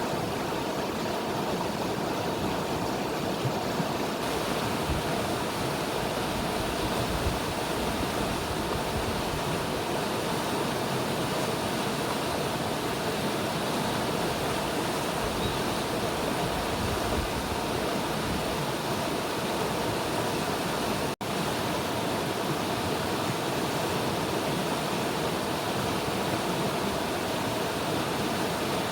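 River water rushing steadily, a constant even hiss of flowing water. A split-second gap about two-thirds of the way through breaks it.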